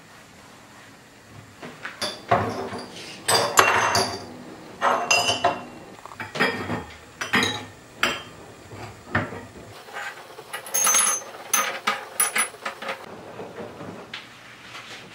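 Drinking glasses and dishes clinking and knocking on a kitchen cabinet shelf as they are handled: a string of sharp clinks, a few with a high glassy ring about eleven seconds in.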